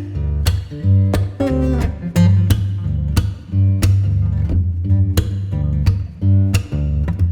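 Background music: strummed acoustic guitar over a steady bass line.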